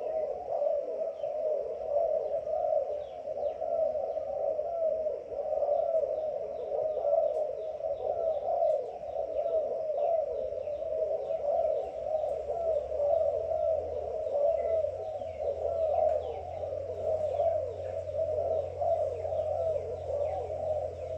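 Many doves cooing at once, their calls overlapping into a continuous chorus, with small birds chirping above them. A low steady hum comes in about halfway through.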